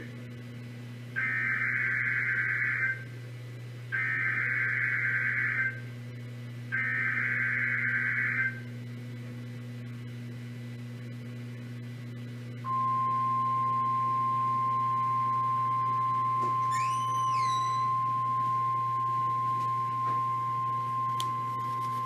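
Emergency Alert System signal on NOAA Weather Radio: three short bursts of SAME digital header tones, each under two seconds and a second or so apart. A few seconds later comes the steady 1050 Hz weather radio warning alarm tone, held for about ten seconds, over a steady low hum. Together the header and alarm tone mark the start of an alert, here a tornado watch.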